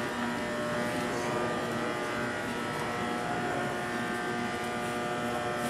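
A steady hum made of several held tones over a constant background hiss, unchanging throughout.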